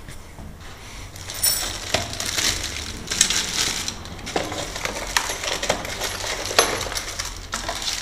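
Metal parts of a new Brava 3062 storeroom lock clinking and clattering against each other and the cardboard box as they are handled and unpacked: a string of sharp clicks and small knocks.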